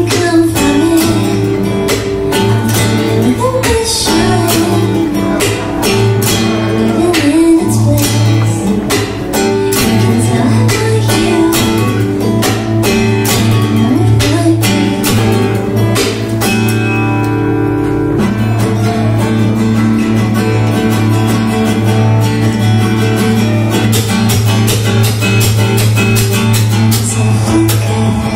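Steel-string acoustic guitar strummed in a steady rhythm, accompanying a woman singing; a little past halfway the strumming pauses and a chord rings on for about two seconds before it picks up again.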